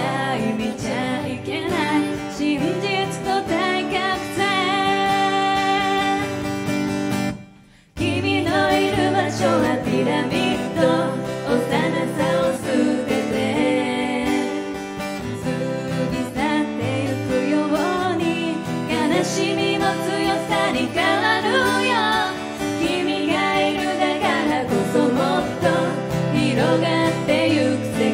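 A woman singing into a microphone over a strummed acoustic guitar, played live. The music cuts out briefly about seven and a half seconds in, then picks up again.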